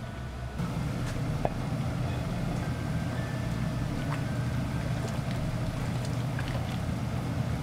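Restaurant kitchen background: a steady low rumble, with a couple of light clinks about a second and a half in and around four seconds in.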